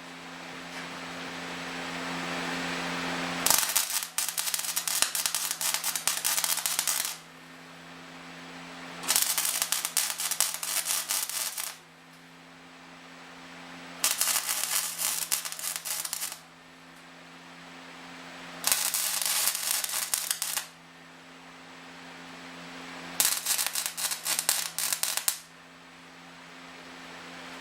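Electric arc welding: five short welds of two to four seconds each, each one a dense crackle and sizzle of the arc, with the welding machine's steady hum between them.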